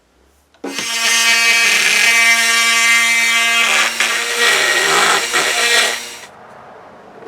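Small handheld power tool running at a steady speed for about five seconds, starting abruptly and winding down near the end, while working on a nail pin or the piece it goes into.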